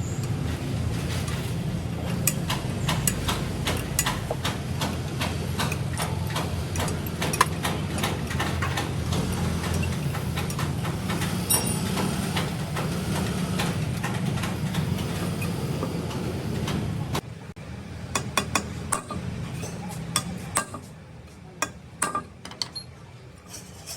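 Workshop tool work on metal turbocharger parts: a steady low mechanical hum with many sharp metallic clicks and taps. About seventeen seconds in the hum stops, leaving scattered taps.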